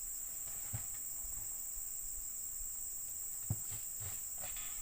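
Steady high-pitched drone of insects in the plantation, with two soft low thumps, one just under a second in and a stronger one about three and a half seconds in.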